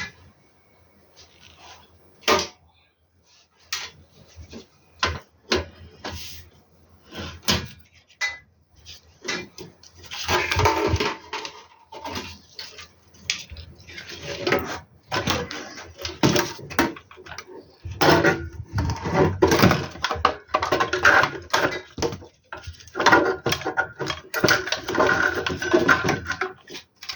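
Clicks, knocks and clattering rustle of hands handling metal and plastic parts while an inverter is put back together: scattered separate clicks at first, then busier stretches of rattling and rustling in the second half.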